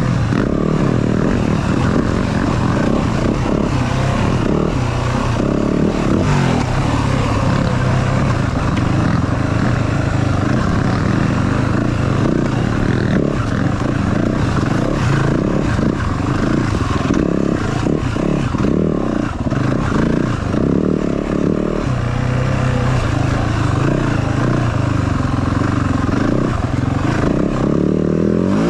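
Yamaha WR450F's 450 cc single-cylinder four-stroke engine running under load, its pitch rising and falling with the throttle. Scattered short knocks come through alongside it.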